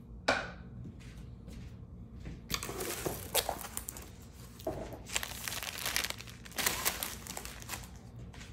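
Plastic packaging bag crinkling as it is handled and pulled open, with a sharp tap just after the start and a longer stretch of crackling from about two and a half seconds in.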